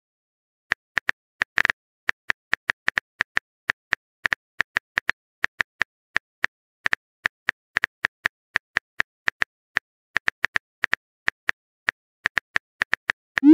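Smartphone keyboard typing sound effect: a long run of short, irregular clicky taps, about three or four a second, as a text message is typed. A short rising sweep right at the end marks the message being sent.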